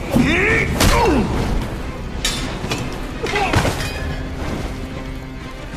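Action-film soundtrack: music under heavy booms, thuds and crashes, with short rising-and-falling cries near the start and again about halfway through.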